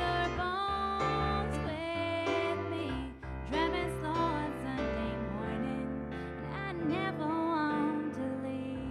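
A woman singing a slow song, accompanied by piano chords and bass notes played on a Nord Stage 2 stage keyboard.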